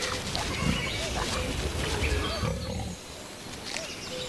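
Wild boar grunting low as it roots in grass and leaf litter for mushrooms; the grunting stops about three seconds in.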